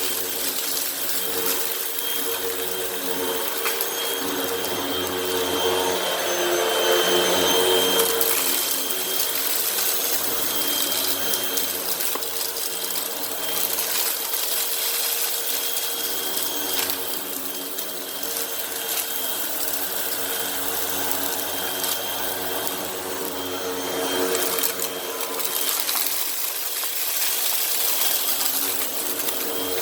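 Hoover WindTunnel High Capacity Pet upright vacuum running steadily, its motor hum joined by crackling and rattling as it picks up cat litter, sand and dirt from a rug.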